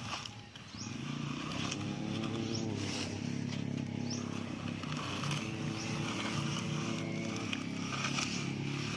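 A steady engine-like drone, wavering slightly in pitch, with faint scraping as a plastic toy dump truck is pushed through wet sand.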